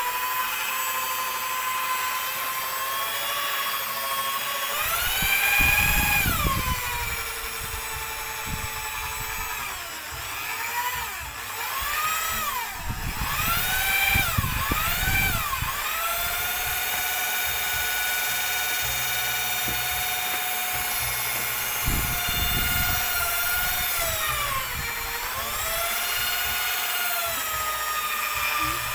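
Handheld electric drill with a rod bit stirring a bucket of homemade liquid dish soap, its motor whining steadily. The pitch of the whine climbs and falls back several times as the trigger speed changes, rising about five seconds in, wavering up and down in the middle, and dipping near the end.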